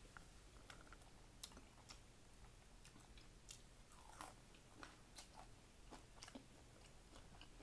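Faint close-up chewing of a mouthful of cheeseburger: scattered soft wet mouth clicks and smacks, the loudest about four seconds in.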